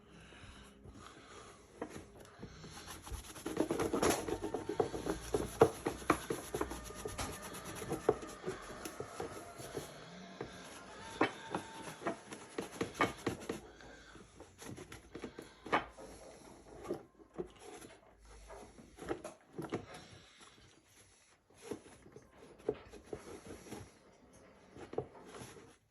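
Hand rubbing and scrubbing, with many sharp clicks and knocks. It is densest about three seconds in and thins after the middle to scattered knocks and short rubs.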